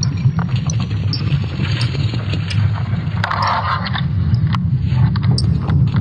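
Steady low rumble with scattered crackles and clicks, and a brief scraping hiss about three seconds in.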